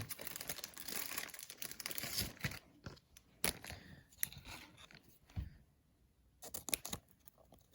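Plastic card sleeves and wrappers rustling and crinkling as a trading card is slid into a sleeve and put away, then a few light taps and clicks of cards and plastic being handled.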